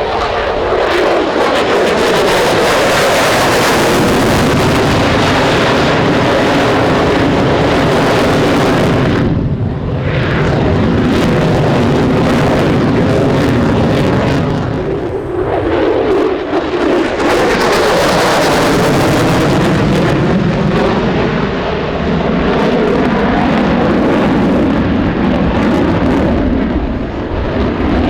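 F-22 Raptor's twin turbofan engines making loud, continuous jet noise during low flypasts. The pitch of the roar shifts and sweeps as the jet passes, and the hiss thins out briefly about a third and halfway through.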